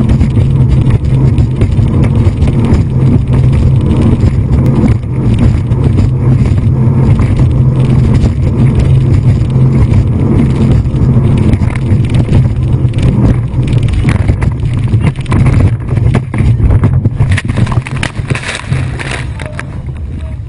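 Speedboat engine running at speed, a steady low drone under the rush of wind and water. Near the end, splashing water crashes in over the boat.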